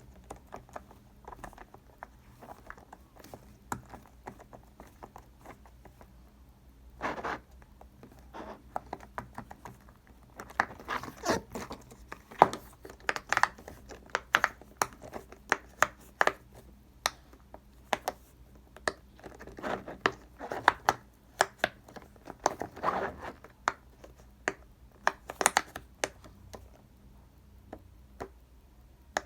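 Fingers pressing, tapping and scratching a cake-shaped silicone pop-it fidget toy: irregular soft pops, clicks and scratches, sparse at first and coming in busier flurries from about ten seconds in.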